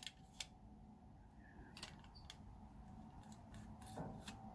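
Faint, scattered clicks of a screwdriver turning a bracket screw into the metal frame of a pinball score reel unit, a few light ticks against near silence.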